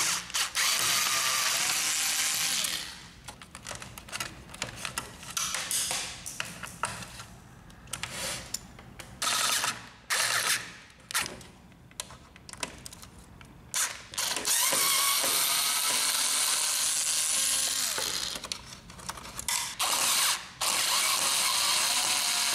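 Small cordless electric screwdriver backing out screws: its geared motor runs in spells of a few seconds, with a stretch of short stop-start bursts and clicks in the middle.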